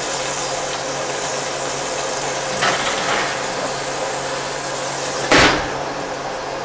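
Kitchen oven being closed: a lighter metal knock about two and a half seconds in as the oven rack is pushed back, then a loud bang about five seconds in as the oven door shuts. A steady low hum runs underneath.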